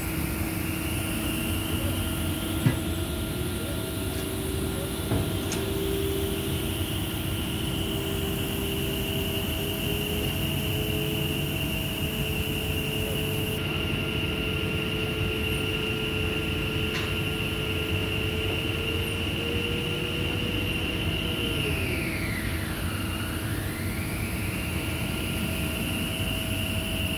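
Drilling rig machinery running steadily with a whine over a low rumble. Near the end the whine drops in pitch and climbs back.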